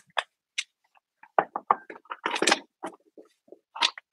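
A quick irregular string of close knocks and taps, as of things being handled and set down right beside the microphone.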